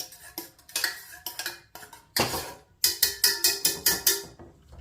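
Metal spoon knocking and scraping against a saucepan while stirring the porridge, a run of ringing clinks that come faster, about five a second, in the second half.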